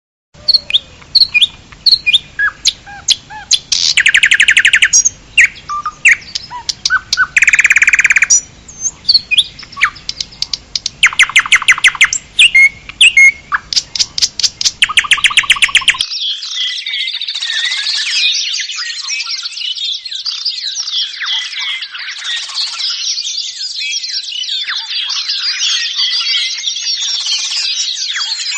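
Birds calling: loud separate chirps and several rapid buzzy trills, each lasting about a second, then an abrupt change about halfway through to a dense, continuous chorus of many birds chattering at once.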